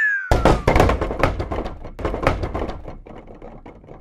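Cartoon sound effect of many small balls dropping and bouncing: a sudden clatter of knocks, dense at first and thinning out over about three seconds. A falling whistle glide overlaps its start and is gone within the first second.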